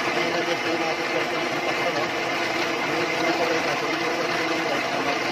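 Milling machine running steadily, its three-phase motor giving a continuous even mechanical hum with a few steady tones: the machine working again once its contactor control circuit was rewired.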